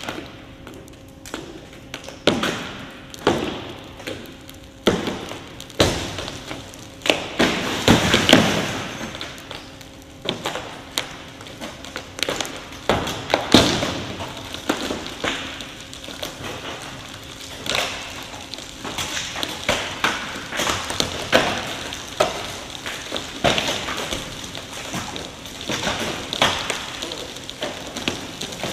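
The windshield and roof of a 2016 Tesla Model S cracking and popping as a steel plate crushes down on the roof in a roof-strength test. A long run of irregular sharp cracks, snaps and thuds, thickest about eight and thirteen seconds in, over a faint steady hum.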